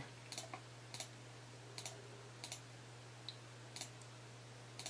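Faint, irregular clicks of a computer mouse, about half a dozen, over a low steady hum.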